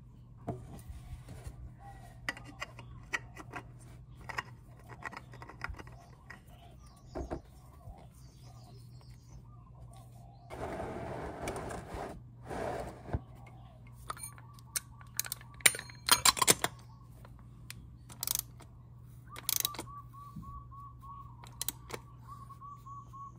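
Hand work on a scooter's oil filter: scattered clicks and metal knocks as the new filter and tools are handled, and a scraping rush lasting about two seconds near the middle as the plastic drain pan is moved. Near the end a ratchet clicks steadily in a quick even run as the filter is tightened with a cap-type filter wrench.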